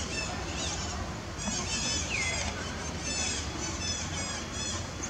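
Many short, high-pitched animal calls overlapping, with one longer falling call about two seconds in, over a steady background noise.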